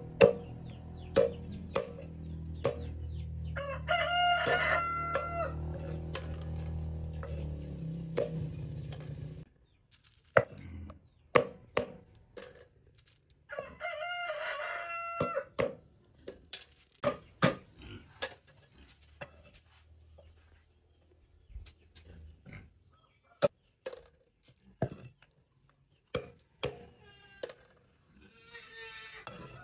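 A heavy knife chops down onto a wooden chopping board in sharp, irregular knocks, cutting the tail tips off snail shells. A rooster crows twice, about four seconds in and again about fourteen seconds in, and a low steady hum runs under the first nine seconds.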